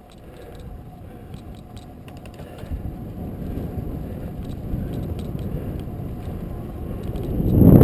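Wind buffeting the microphone of a bicycle-mounted camera during a fast downhill ride, a low rumble with scattered light clicks and rattles. It builds gradually and surges into a loud gust at the very end.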